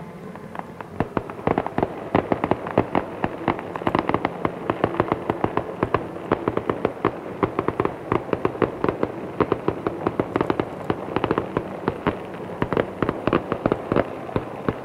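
Fireworks going off in a dense, rapid string of sharp bangs and crackles, several a second, beginning about a second in.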